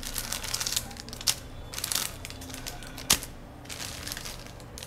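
Plastic lollipop wrappers crinkling as wrapped lollipops are handled and set down one after another, in several short crackling bursts with one sharp tap about three seconds in.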